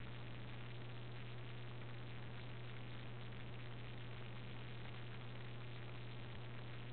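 Steady hiss with a constant low electrical hum: the recording's background noise, with nothing else standing out.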